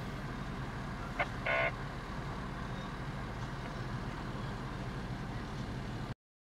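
Fire truck's diesel engine idling with a steady low rumble. About a second and a half in, two short high beeps sound close together, the second slightly longer. The sound cuts off abruptly just before the end.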